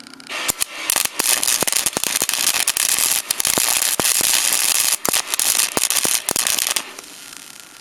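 Small 80-amp MIG welder's arc crackling and sizzling while tack welding sheet metal, with sharp pops and a few brief breaks, stopping about a second before the end.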